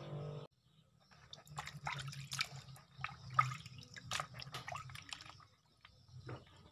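Water splashing and dripping in a plastic basin as hands rub and rinse a whole raw fish: a quick run of small, irregular splashes that thins out after about five seconds.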